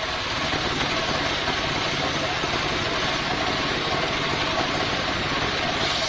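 Single-cylinder stationary diesel engine running steadily, driving a homemade circular sawmill whose blade spins without cutting. Near the end a higher hiss comes back in.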